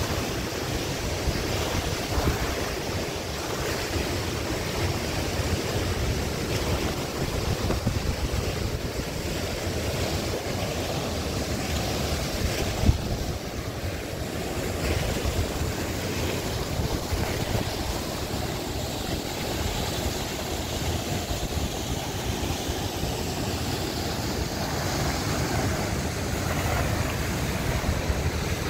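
Wind blowing outdoors, buffeting the microphone in uneven low rumbles over a steady rushing noise, with one brief knock about halfway through.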